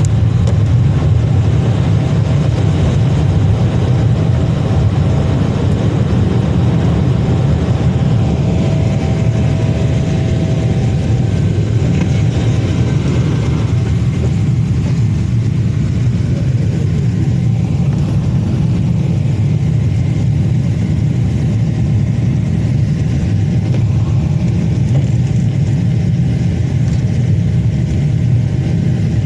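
Airliner cabin noise in flight: the steady, deep rumble of jet engines and rushing air heard from a window seat over the wing, with a faint steady whine that fades out about halfway through.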